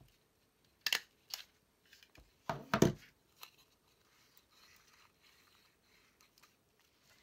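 Tiny Attacher mini stapler snapping shut on fabric and a Viewmaster reel about a second in, with a second click just after. Near three seconds comes a louder knock and clatter, then faint paper rustling.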